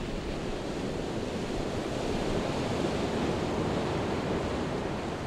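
Ocean waves breaking in open surf: a steady rushing wash that swells a little in the middle.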